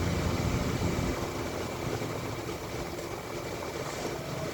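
Steady machinery hum and noise, with a faint high steady whine above it.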